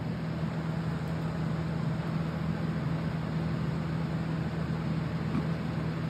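A steady low hum under an even hiss, with no distinct events.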